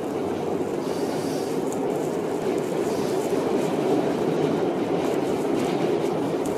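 Subway train running, heard from inside the car: a steady, even noise of the train in motion that doesn't let up.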